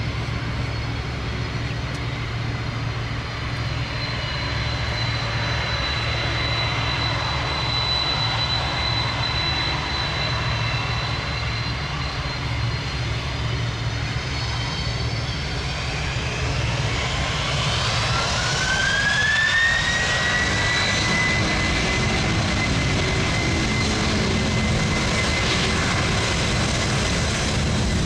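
Boeing 747 freighter's four jet engines whining and rumbling at low thrust, then spooling up about two-thirds of the way in: a rising whine that levels off as the engines come up to takeoff power.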